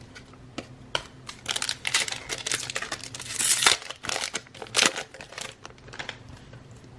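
A trading card pack's wrapper being torn open and crinkled by hand, a run of sharp crackles through the middle of the stretch, loudest about halfway through and again a little later.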